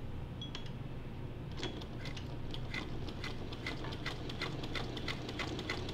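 1952 Singer 301 sewing machine stitching slowly, well below the motor's top speed: a low motor hum under a steady clicking of the stitch mechanism at about four stitches a second, which starts about one and a half seconds in after a few scattered clicks.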